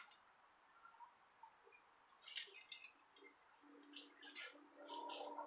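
Near silence broken by a few faint, light metallic clinks, the loudest a short cluster about two and a half seconds in.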